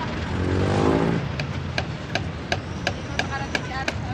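Hammer blows on a wooden cart, sharp and ringing, about three a second, over steady road traffic. A passing vehicle's engine revs up loudly in the first second.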